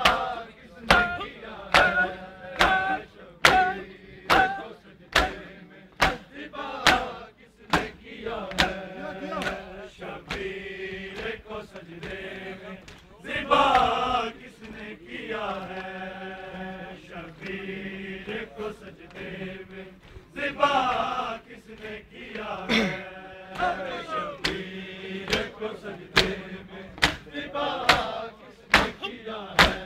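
Men chanting an Urdu noha (Shia lament) as a group, kept in time by loud hand slaps on bare chests (matam) about once a second. The slapping mostly stops in the middle while the voices hold long sung lines, then resumes in the last third.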